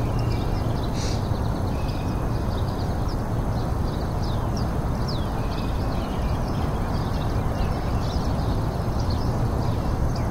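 Steady background noise with many short, faint high chirps scattered through it.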